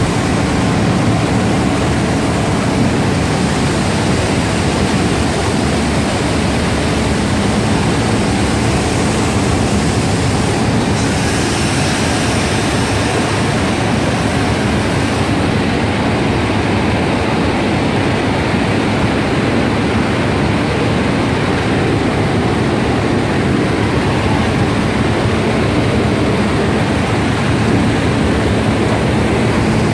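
Belt press running: a loud, steady, even machine noise from its rollers and drive.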